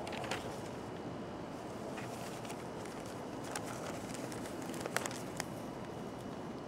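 Newspaper pages rustling and crinkling as the sheets are turned and held open: a few short, crisp rustles over a steady low background hiss.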